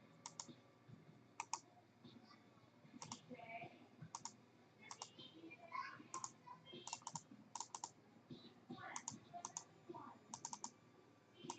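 Faint computer keyboard typing and mouse clicks: short, irregular clicks, often in quick pairs.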